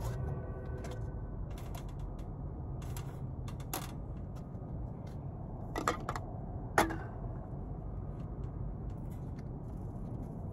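A few sharp mechanical clicks and creaks over a steady low rumble, the loudest click about seven seconds in.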